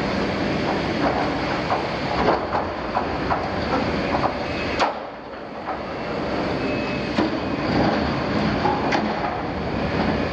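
Liebherr 974 demolition excavator's jaw attachment tearing and crushing the steel plate of an old oil tank: continuous grinding and creaking of metal with frequent sharp clanks. Brief lull about five seconds in, with a short high metal squeal soon after.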